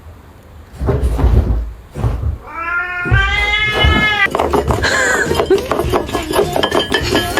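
A domestic cat meowing: one long, drawn-out meow about two and a half seconds in, then a shorter cry a second later, after some low knocking noise.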